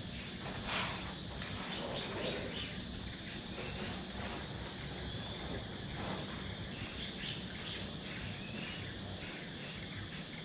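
Aerosol spray-paint can hissing steadily as paint is laid on a wall, then cutting off sharply about five seconds in.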